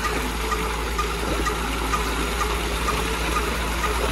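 Steady rush of water flowing from a concrete irrigation channel into a shallow, stony pool.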